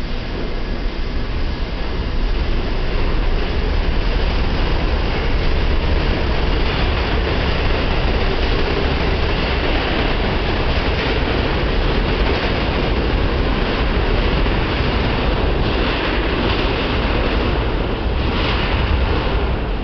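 R68 subway train pulling out of the station and picking up speed: a loud, steady rumble of wheels and traction motors that builds over the first couple of seconds, with the motor howl that earns these cars the name 'howler'.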